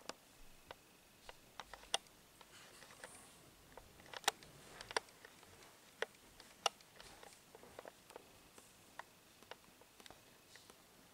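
Faint, irregular clicks and taps, the loudest a handful of sharper ticks in the middle: a cat moving and settling on ladder rungs in a quiet room.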